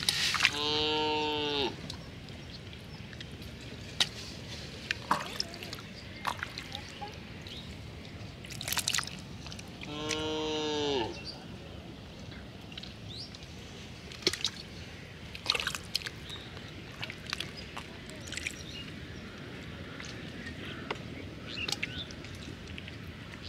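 Two calls from a farm animal, a cow-like moo: one just after the start and one about ten seconds in, each about a second long and dipping in pitch at the end. Between them come scattered wet squelches and clicks of a hand working in a water-filled mud hole.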